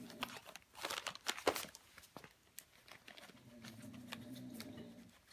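Christmas wrapping paper crinkling and tearing in quick irregular rustles as a small dog noses and tugs a plush toy out of it, busiest about a second in. A low steady hum rises under the rustling for a couple of seconds near the end.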